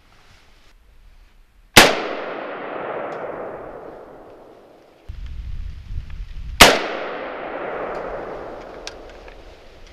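Two shots from a Windham Weaponry AR-15 semi-automatic rifle, about five seconds apart. Each is a sharp crack followed by an echo that rolls away and fades over about three seconds.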